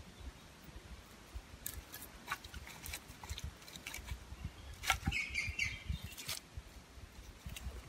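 Faint light knocks and clatters of split pieces of wood being handled. A sharper knock comes about five seconds in, followed by a second or so of higher scratchy sound as the knife blade works against the wood.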